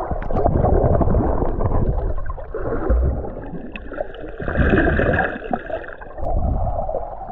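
Water sloshing and gurgling close to the microphone, with choppy splashing.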